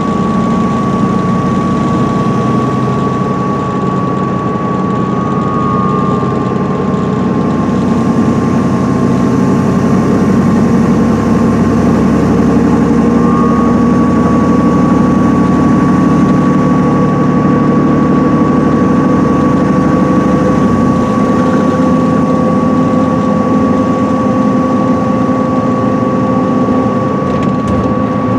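Cummins ISM diesel engine and Allison B500R automatic transmission of a 2010 MCI D4500CL coach cruising at freeway speed, heard from inside the passenger cabin: a steady drone with road noise and a thin, steady high whine.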